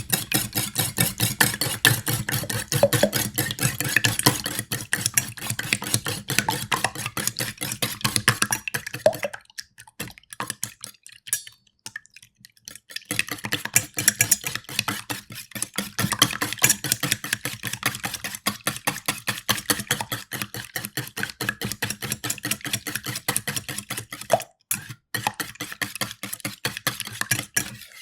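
Two eggs being beaten in a metal bowl: rapid, steady strokes of the utensil against the metal. The beating stops for a few seconds about ten seconds in, apart from a few scattered strokes, then resumes.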